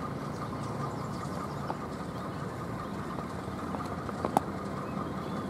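Steady rumble of distant engines, with a few faint clicks and one sharp click about four seconds in.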